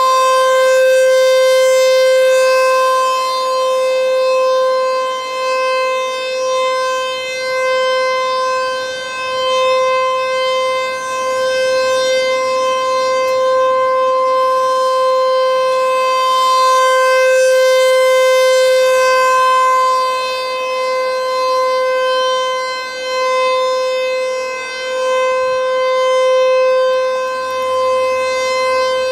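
ASC T-128 rotating outdoor warning siren sounding a steady, unbroken tone that holds one pitch rather than wailing. Its loudness swells and fades every few seconds as the rotating horn sweeps toward and away.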